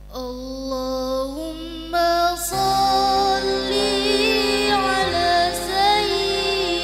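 A young woman singing an Islamic sholawat solo through a microphone and PA, opening a hadroh number. The melody is held and sung in long notes, and it grows louder and fuller about two and a half seconds in.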